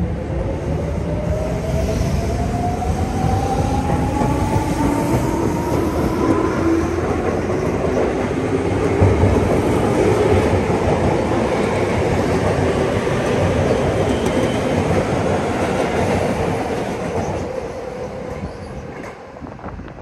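Tobu 9000 series electric train pulling out: its traction motors give a whine that rises steadily in pitch for the first six seconds or so as it accelerates, over the rumble and clatter of wheels on rail joints as the cars pass. The sound fades near the end as the train moves off.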